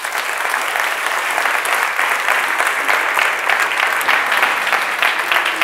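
Audience applause: many people clapping steadily at the end of a talk, filling a large hall.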